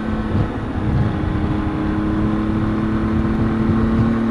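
Triumph Tiger 800 XCx motorcycle's three-cylinder engine running at a steady cruise, heard from the rider's position under wind rush and road rumble.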